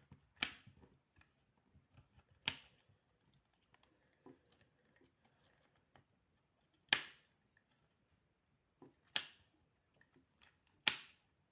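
Plastic colour-sorting puzzle ball fidget toy being turned and pushed by hand: about five sharp clicks at uneven intervals, with faint small ticks of handling between them.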